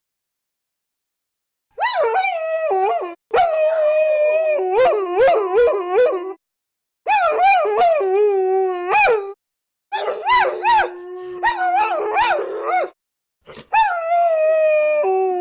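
Several dogs howling together in long, wavering, gliding howls, with one voice holding a low steady note under others that rise and fall above it. The howling starts about two seconds in and comes in bouts broken by short silences.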